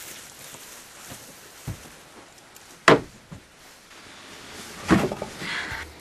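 A few short knocks and thumps over a faint background hiss. The sharpest and loudest comes about three seconds in, and a heavier thump with some rustling after it comes near the end.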